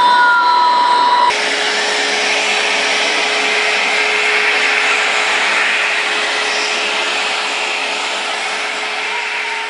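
Vacuum cleaner running steadily, sucking up milling chips through a hose nozzle from a freshly milled pocket, with a steady hum under a loud rushing noise. It takes over abruptly about a second in from the CNC router's machine whine.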